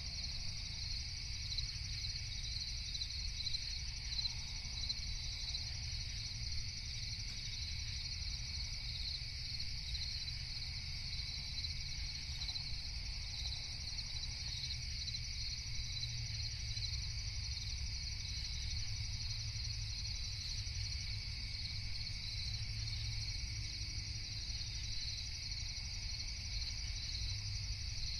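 Steady chorus of crickets chirping continuously, high and unchanging, over a low background rumble.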